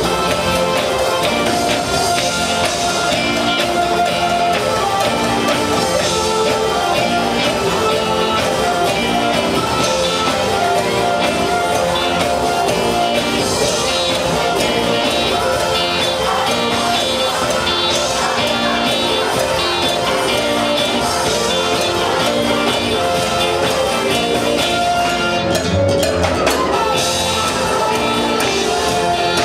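Live gospel band playing a steady repeating groove on electric bass, electric guitar, keyboards and drum kit.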